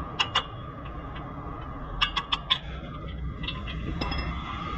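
Light metallic clinks of tools and suspension parts being handled: two near the start, then four in quick succession about two seconds in, over steady workshop background noise.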